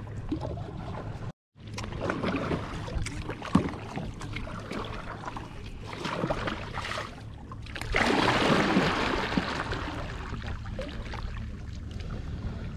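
Kayak paddle strokes dipping and splashing in calm water, over a steady low rumble. The sound drops out completely for a moment about a second and a half in. A louder rush of splashing noise comes about eight seconds in and lasts a second or so.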